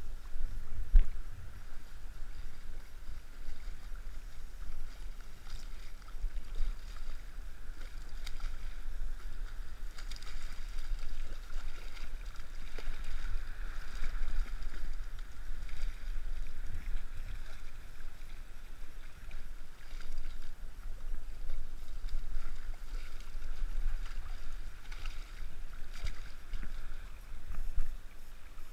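Splashing water as a hooked striped bass thrashes at the surface in shallow surf, over a steady low rumble of wind on the microphone, with a few brief knocks.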